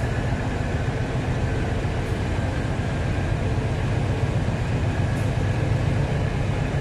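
Diesel locomotive engine running steadily: a low, even rumble.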